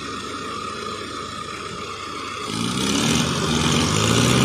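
Farm tractor's diesel engine running at low revs, then revving up and getting louder about two-thirds of the way in.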